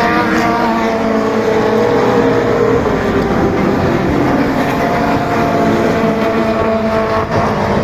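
Several touring race cars passing together on a race circuit, their engines at high revs with overlapping notes, some held steady and some shifting in pitch as the drivers change gear.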